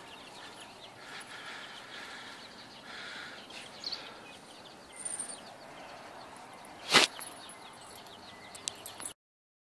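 Outdoor background with faint, repeated bird chirping, broken by one sharp knock about seven seconds in; the sound cuts to silence near the end.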